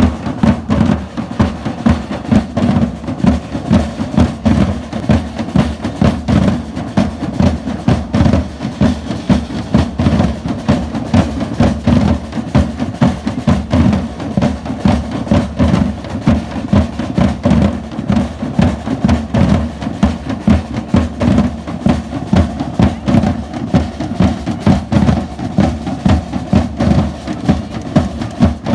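Live drums playing a steady, driving beat, with heavy bass drum hits at about two to three a second over snare.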